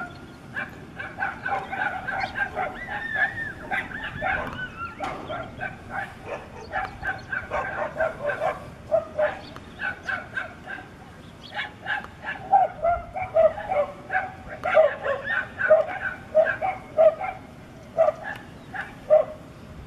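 A pack of dogs barking and yelping, many short barks overlapping one another, louder and more spaced in the second half.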